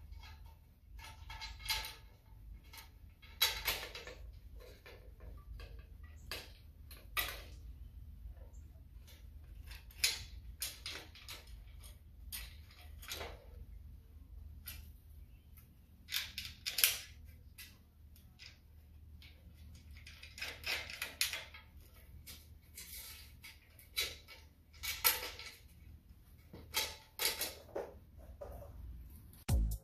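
Xtenda-Leg ladder leg extension being fitted by hand: irregular clicks, scrapes and light metal knocks as the leg tube is slid and seated in its bracket on the ladder rail, over a low steady hum.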